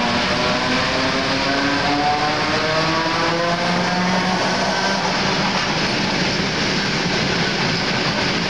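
ER2T electric multiple unit pulling away and gathering speed: the traction motors give a whine of several tones that climbs steadily in pitch for the first five seconds or so, over the steady rumble of the train rolling on the rails.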